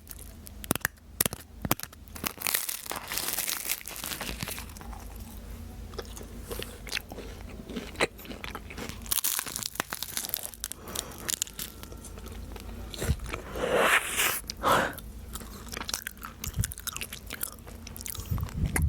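Close-up eating sounds of a flaky French bakery pastry: crisp crackling bites and chewing, with a louder run of crunches a little past the middle.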